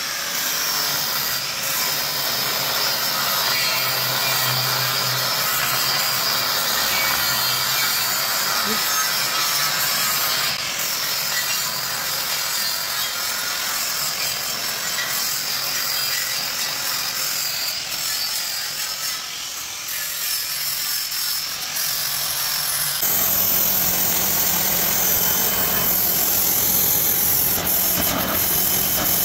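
Electric angle grinder running steadily with a high whine as its abrasive disc grinds rust and old paint off aged iron railing bars. About 23 s in it gives way to the steady hiss of a pressure washer jet spraying a concrete pillar.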